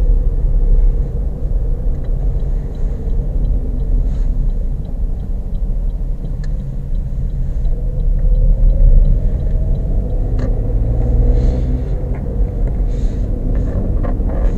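Car driving, heard from inside the cabin: a steady low road and engine rumble, with the engine note rising about halfway through as the car speeds up.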